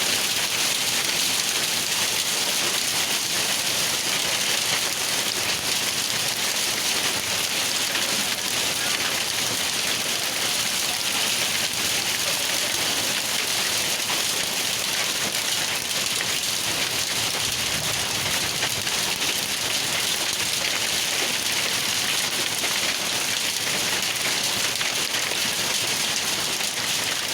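Hailstorm: hail and rain pelting down in a steady, dense patter of countless small hits that does not let up.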